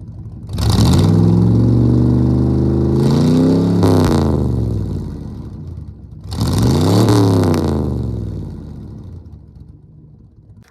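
Ford LTD's V8 driving past twice. It runs up in pitch from about half a second in and passes near four seconds, its pitch dropping as it goes by; a second pass near seven seconds drops in pitch the same way, then the engine fades away.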